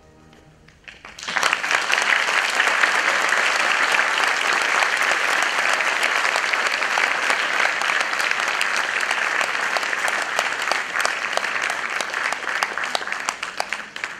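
The last held note of piano and string orchestra dies away, and about a second in the audience starts applauding, a dense, steady clapping that carries on almost to the end.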